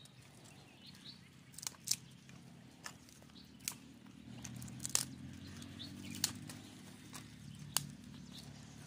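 Dry sticks and twigs snapping and cracking as they are broken and gathered by hand for firewood: irregular sharp cracks, about one a second.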